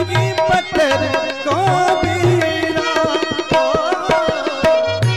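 Instrumental passage of a devotional bhajan: tabla playing a steady rhythm, with sharp strokes and deep bass-drum thuds about once a second, under a melody instrument holding and bending notes.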